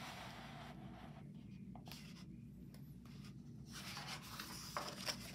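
Paper rustling and brushing as a hand slides over and turns the page of a hardcover picture book: soft for about the first second, quieter in the middle, then the page turn from just before four seconds in, with a couple of light taps near the end.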